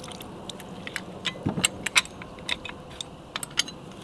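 Knife chopping raw fish into small pieces for ceviche: irregular sharp knocks and clicks, a few each second.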